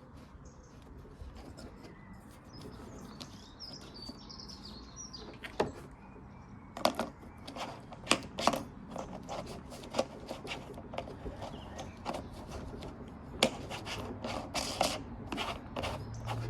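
Birds chirping faintly in the background, then from about five seconds in a run of irregular sharp clicks and knocks of hand work, sink fittings being handled and put together.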